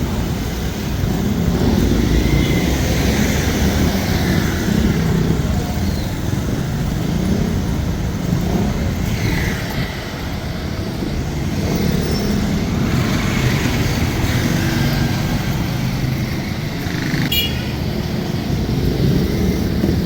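Street traffic noise: a steady low rumble of vehicles running past, with one brief sharp click about three seconds before the end.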